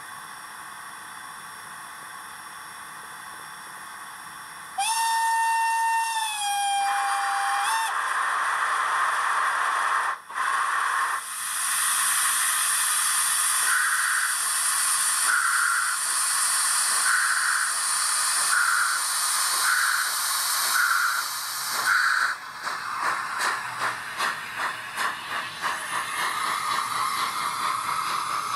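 Sound decoder of a model DR class 93 steam tank locomotive: a steam whistle blast about three seconds long, then loud steam hissing with slow chuffs about a second apart, the chuffs quickening sharply near the end as the locomotive pulls away.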